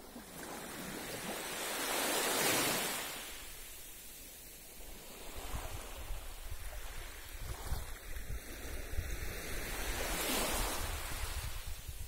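Small waves of a calm sea washing up onto a sandy beach: two swells of surf, each rising and fading, about eight seconds apart. From about halfway through, wind buffets the microphone with a low fluttering rumble.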